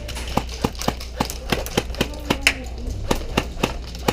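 Airsoft guns firing sharp single shots at an irregular rhythm, about four a second.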